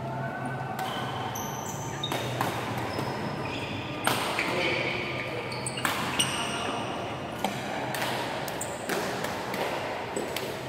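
Badminton being played on a wooden sports-hall floor: sharp racket hits on the shuttlecock and many short, high squeaks of court shoes, echoing in a large hall.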